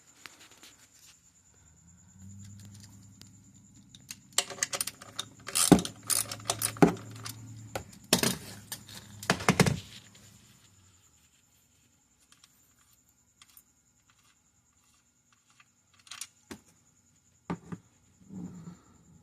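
Metallic clinking and clattering of a wrench and the oil pan drain plug, bunched in the first half along with a low hum, then a few scattered clicks later.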